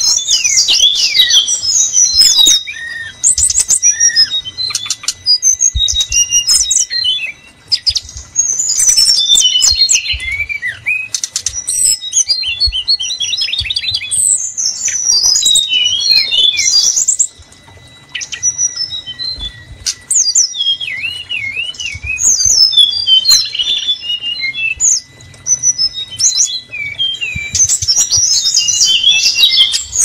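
Brown-chested jungle flycatcher (SRDC) song used as a bird-trapping lure call: a busy, nearly unbroken stream of quick high whistles, chirps and trills, with a few brief pauses.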